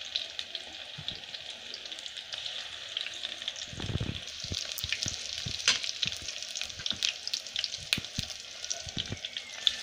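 Besan-battered cauliflower florets deep-frying in hot oil in a wok: a steady sizzle with dense small crackles and pops that grows stronger about halfway through, with a dull low bump shortly before.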